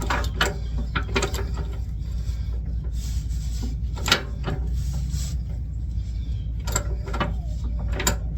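Socket ratchet clicking in short, irregular spells, with metal clinks of the socket and extension, as a rusted idler arm bolt on a 1979 Chevrolet Malibu is worked loose. A steady low hum runs underneath.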